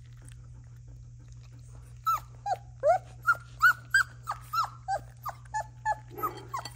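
Golden retriever giving a run of short, high-pitched whines or yelps, about three a second, starting about two seconds in. Before that, faint soft smacking of puppies eating wet food.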